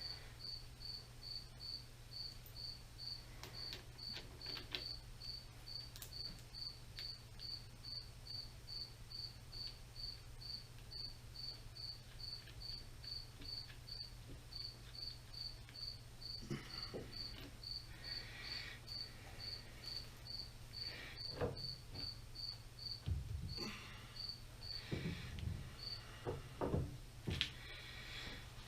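A cricket chirping steadily, about two chirps a second, over a steady low electrical hum. From about halfway through, scattered knocks and rattles of parts being handled join in.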